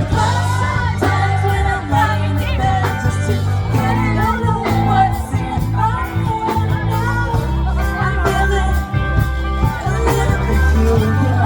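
Live band playing a rock-pop song: a singer over guitar, a strong bass line and a steady beat.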